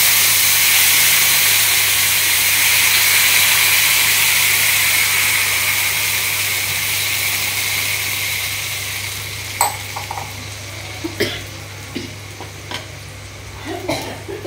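Water poured into a hot pan of oil-fried vegetables, sizzling and hissing loudly, the hiss slowly dying away over about eight seconds as the water heats. Then a few light clinks and knocks of a utensil against the pan, from about ten seconds in.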